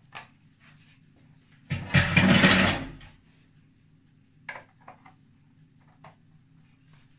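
Electric hand mixer switched on for just over a second and then off again, followed by a few light clicks.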